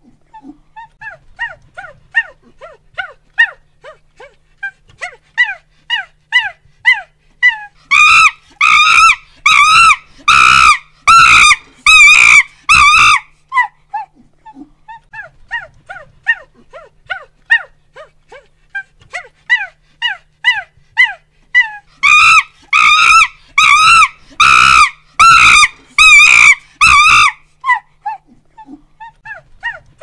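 Monkey calls: a run of short hoots that come faster and louder, building into a burst of loud screams, then tailing off. The whole sequence happens twice.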